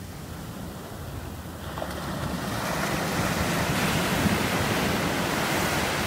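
Small waves breaking and washing up on a sandy beach, the surf hiss swelling about two seconds in, loudest around the middle and easing near the end. Wind buffets the microphone with a low rumble underneath.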